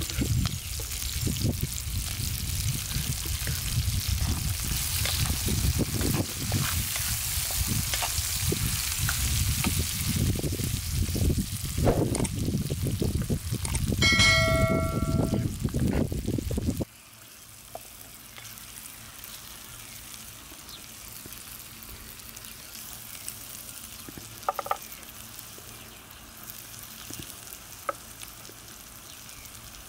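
Sliced chillies and garlic sizzling in hot oil in a cast-iron pan over a wood fire. About halfway through there is a short bell-like chime. After a sudden cut the sizzling carries on much quieter, with a few faint crackles.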